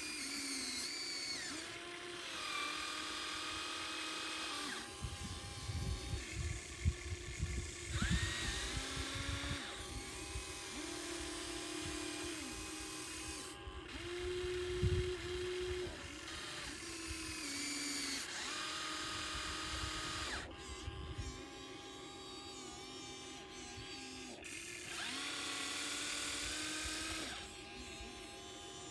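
Small electric motors of a radio-controlled model excavator whining in spurts of a few seconds, the pitch jumping up or down each time a movement starts or stops. A stretch of rough rumbling and knocking comes about a quarter of the way in, with a single knock about halfway.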